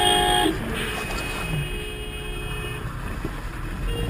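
Vehicle horn honking: a short, loud blast, then a longer, fainter honk about a second in, over steady road rumble inside a moving car.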